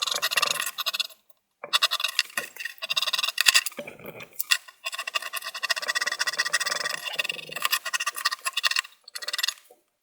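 Plastic pry tool scraping caked dust off the metal fins of a CPU heatsink, in quick rasping strokes, with brief pauses about a second in, near the middle and near the end.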